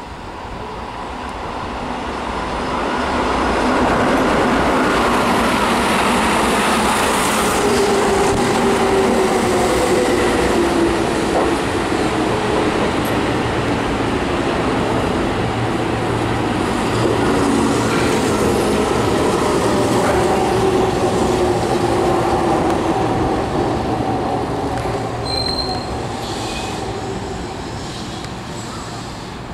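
Keihan 6000-series electric commuter train pulling into a station, its wheels rumbling on the rails and its motors whining. The whine falls slowly in pitch as the train slows to stop. The sound swells over the first few seconds and eases off near the end.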